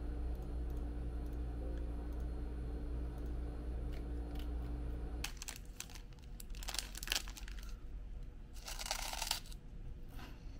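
A steady low hum for about five seconds, then wrapping being crinkled and torn in short bursts of rustling and crackling.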